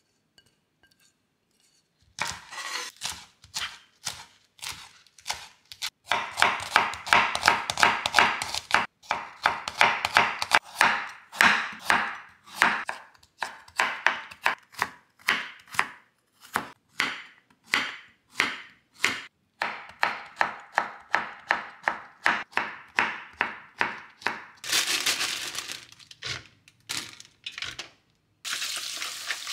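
Chef's knife julienning vegetables, carrot among them, on a wooden cutting board: a long run of quick, crisp cuts, often three or four a second. Near the end, tap water runs into a plastic colander of bean sprouts in a stainless steel sink.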